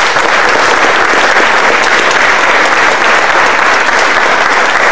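Audience applauding, a steady dense clapping that holds at full strength.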